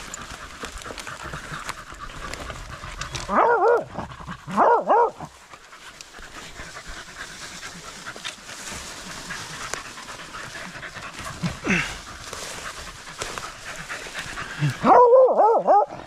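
Beagle hounds baying with wavering, drawn-out cries: two short bays a few seconds in, then a quick run of bays near the end, with a steady rustle and panting in between. The hounds are baying at the hole under a tree's roots where a rabbit has gone to ground.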